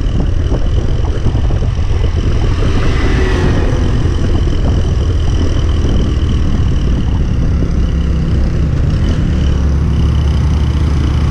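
Motorcycle riding along a road: the engine running steadily under way with wind rushing over the microphone, a dense low rumble with a faint steady whine above it.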